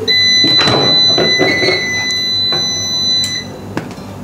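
Heat press timer buzzer sounding one steady high-pitched tone for about three and a half seconds, then cutting off: the signal that the 20-second press time is up. A few knocks come as the clamshell press is lifted open.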